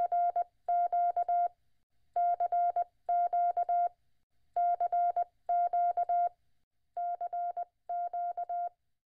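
Morse code sent as a single steady beep tone, keyed in rapid dots and dashes. It comes in four pairs of short groups with brief gaps between them.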